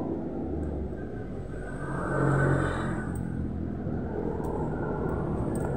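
Low rumble with a steady low hum underneath, swelling for about a second around two seconds in.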